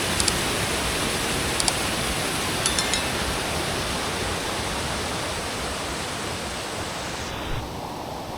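Loud, steady rush of falling water from the Eifersbach waterfall and its stream, with a few light ticks in the first three seconds. The hiss in the upper range drops off abruptly near the end.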